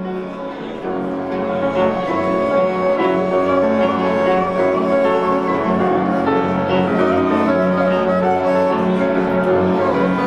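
Instrumental music led by bowed strings: a melody moving over a held low note.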